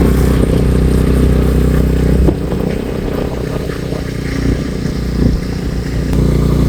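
Motorcycle engine running under way, easing off about two seconds in and picking up again near the end.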